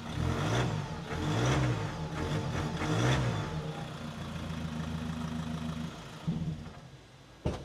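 Ford Everest diesel engine breathing through an aftermarket JTC titanium exhaust, blipped three times in quick rising-and-falling revs, then idling steadily. The exhaust note is not deafeningly loud. A short click comes near the end.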